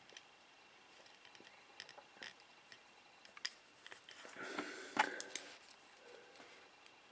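Faint, scattered small clicks and scrapes of fingernails and plastic as a wire is pressed back into a small toy drone, with a louder cluster of clicks about five seconds in.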